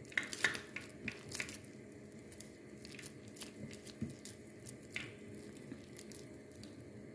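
Faint squishing and light scattered clicks of hands working raw blended chicken breast mixture, pressing it around squash sticks, busiest in the first second or so.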